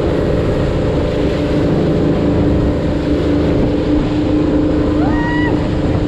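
Moomba Max wake boat's inboard engine running steadily, with wind on the microphone. A short rising-and-falling tone comes about five seconds in.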